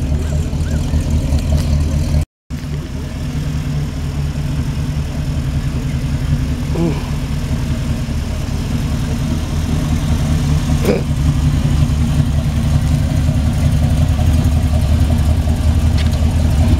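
Engine of a flame-painted vintage hot rod coupe running at low speed as the car drives slowly closer, growing steadily louder.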